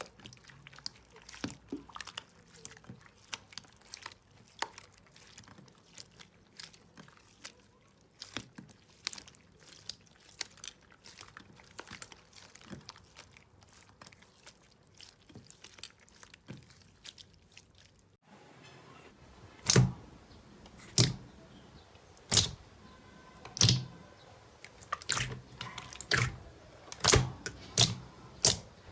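Slime being squeezed and stretched by hand, making many small wet, sticky clicks and crackles. About two-thirds of the way through, louder, sharper pops take over, coming about once a second and then faster.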